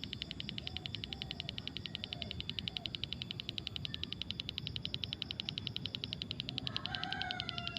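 A strange, rapid, high-pitched pulsing that goes on evenly without a break. A cat meows faintly a few times, with a louder meow near the end.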